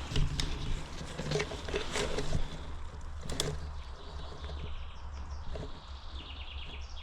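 Footsteps crunching through forest undergrowth, with twigs snapping in the first few seconds. A small songbird sings rapid trills in the second half.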